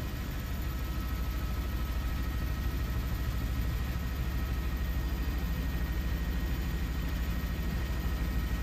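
Distant jet engines of a mixed formation of Red Arrows BAE Hawk trainers and F-35 Lightning II fighters passing overhead: a low, steady rumble that grows slightly louder.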